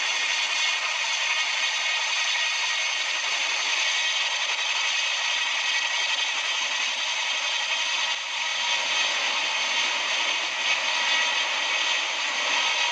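Russian heavy-lift helicopter running: a loud, steady rush of turbine and rotor noise with a thin high whine in it.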